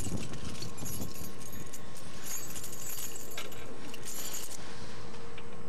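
Metallic jingling and clinking in quick clusters, from about one second in to near the end, as small metal parts are handled, over a faint steady hum.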